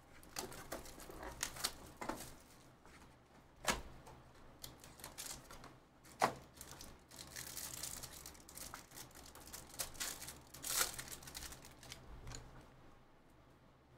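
Plastic wrapper of a Panini Absolute football card pack being torn open and crinkled, with sharp clicks and rustles of the cards being handled.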